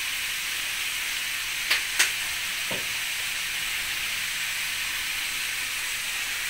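Stir-fry of Chinese cabbage, tofu and seafood sizzling steadily in an aluminium wok over a gas flame. Two sharp clicks come about two seconds in, followed by a fainter knock.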